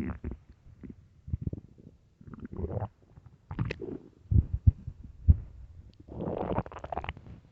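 Empty stomach growling and gurgling in a run of separate, irregular bursts: short gurgles, a few brief low thuds midway, and a longer deep rumble near the end.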